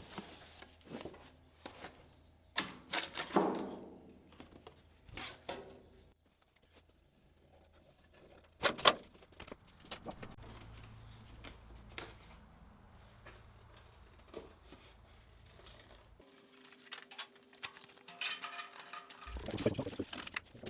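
Workshop handling sounds: scattered light knocks, clicks and clatter of tools and material being picked up and set down, with one sharp knock about nine seconds in.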